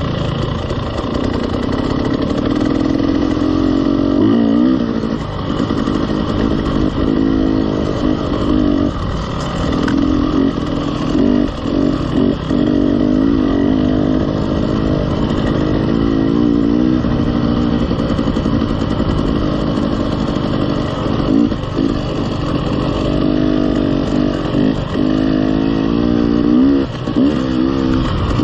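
KTM 300 two-stroke dirt bike engine running at trail speed, its pitch rising and falling again and again as the throttle is opened and rolled off, over a steady rush of wind and tyre noise.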